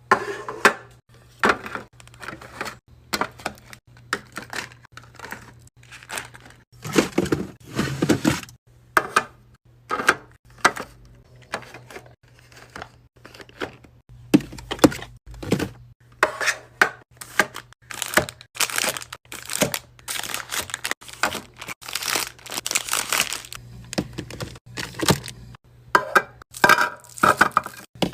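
A mini fridge being restocked by hand: plastic packaging crinkling and tearing, and many short knocks as items are set down, over a steady low hum.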